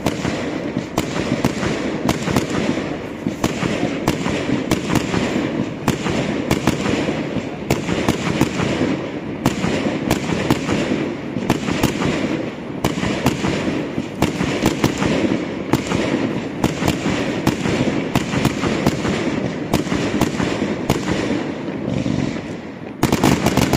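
Fireworks display: a dense, continuous run of bangs and crackles, several a second, getting louder again just before the end.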